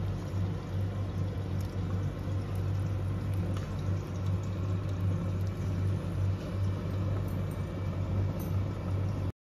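A steady low machine hum over a rumbling hiss, running without a break, with a few faint light ticks.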